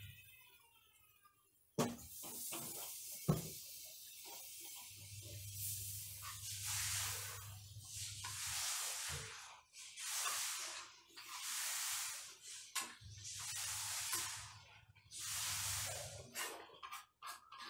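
Water hitting a hot frying pan with browning chicken thigh, sizzling and hissing; it starts suddenly about two seconds in and then swells in repeated bursts of spitting hiss.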